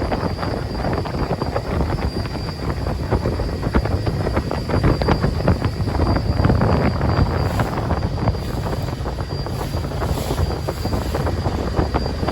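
A ferryboat's engine running steadily underway, a low drone, with wind buffeting the microphone.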